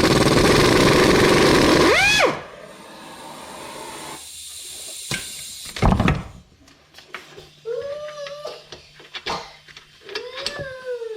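A pneumatic shop tool hammers loudly for about two seconds and cuts off, its pitch sweeping as it stops. Clinks and knocks of metal tools and parts follow, two of them louder around the middle, with a couple of short squeaks near the end.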